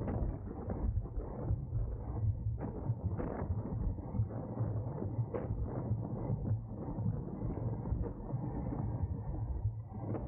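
Wind rushing over a camera riding on a racing bicycle at speed, with irregular knocks and creaks from the bike.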